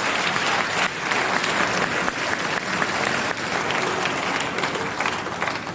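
Audience applauding, with dense clapping that carries through and tails off slightly near the end.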